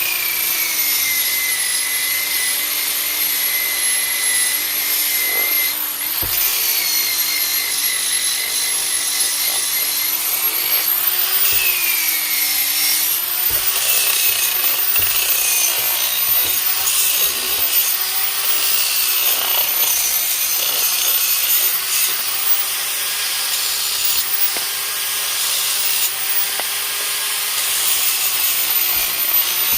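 Small handheld power tool running against wood, its motor whine wavering up and down in pitch throughout, with a steady scraping rub of the work.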